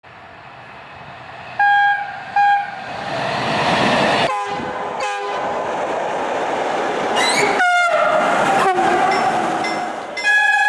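Train horns sounding over the rumble of a passing freight train: two short blasts about two seconds in, then horn notes falling in pitch as the train goes by, and a long steady horn starting near the end.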